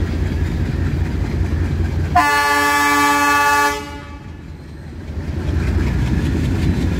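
Indian Railways diesel locomotive horn sounding one blast of about a second and a half, over a low rumble that drops away after the blast and builds again near the end as the train approaches.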